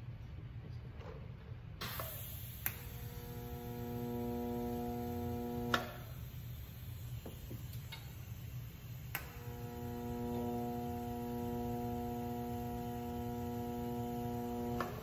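Welder arc buzzing steadily, struck twice with a click: once about three seconds in for about three seconds, then again about nine seconds in until the end, over a low electrical hum.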